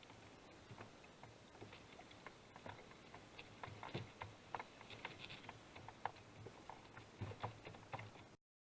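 Faint, irregular ticking and clicking, a few small ticks a second, that cuts off suddenly near the end.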